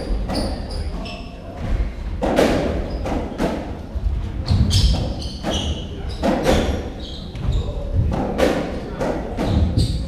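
Racketball rally: the hollow rubber ball thuds off the rackets, walls and floor in a quick run of hits, roughly one or two a second, with short squeaks of court shoes on the wooden floor in between.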